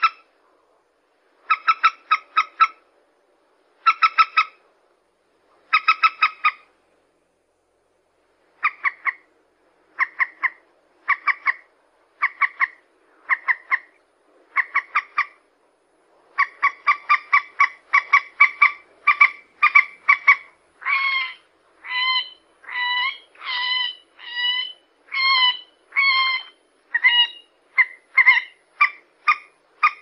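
Common moorhen calling. Short sharp notes come first in clusters of three or four about every two seconds, then singly about once a second. After that they run faster, and in the second half they turn into longer calls that bend slightly in pitch.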